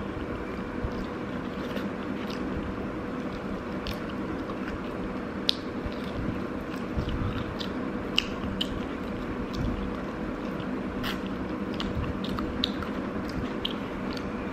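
Close-miked chewing of a mouthful of rice and meat, with scattered small wet clicks and smacks, over a steady low hum.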